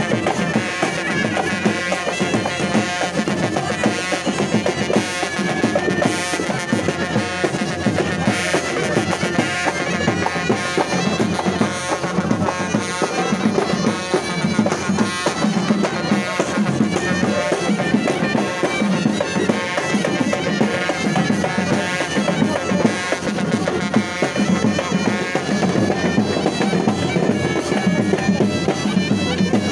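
Moroccan street band of ghaita reed pipes and large double-headed drums playing a loud, continuous processional tune over a steady drumbeat.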